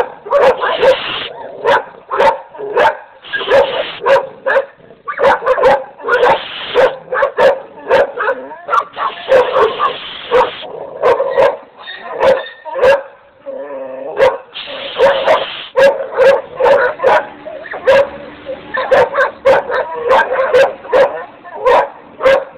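Several American Pit Bull Terriers barking, sharp barks several a second overlapping one another without a break.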